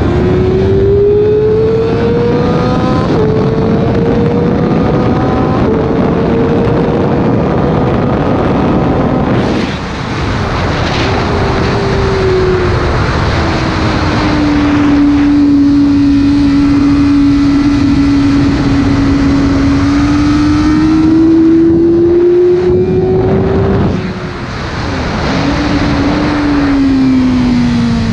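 Sport motorcycle engine at high revs on a track lap, recorded onboard with heavy wind noise. The engine climbs through upshifts in the first several seconds, falls off just before ten seconds in, then pulls and rises again, and is shut off about 24 seconds in, winding down as it slows for the next corner.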